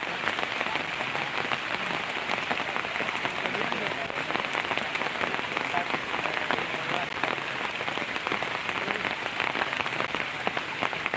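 Heavy rain falling steadily, with many close drops ticking against a near surface.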